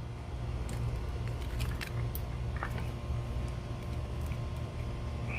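Small, faint clicks and ticks of a plastic headlight wiring connector being handled and picked at while its watertight rubber seal is worked out, over a steady low hum.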